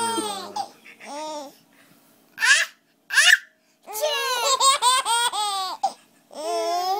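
A child laughing in bursts of giggles, with two short breathy bursts a few seconds in.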